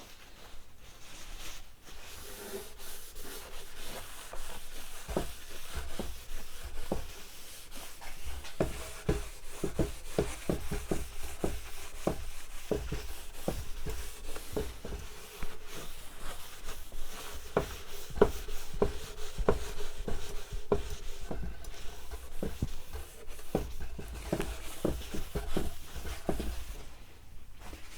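Paper towel rubbing and wiping over the lacquered wooden cabinet of a vintage radio, a run of scratchy rubbing strokes with small crackles. It is wiping off the finish-restoring product that has just been worked into the damaged lacquer.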